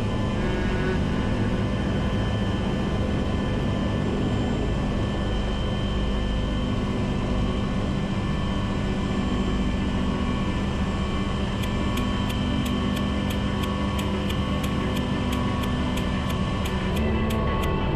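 Bell 429 helicopter in flight, heard from inside the cabin: a steady turbine whine over rotor and engine drone. About two-thirds of the way through, a sharp regular ticking starts, about two ticks a second.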